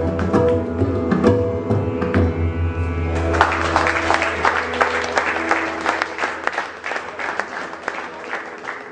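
Tabla, flute and violin playing the closing notes of a Hindustani classical piece, with held notes over tabla strokes. About three seconds in, audience applause takes over and fades away.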